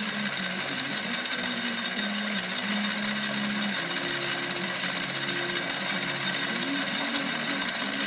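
Metal lathe running under power: its motor and gear train whir and hum steadily, with a slightly wavering low drone.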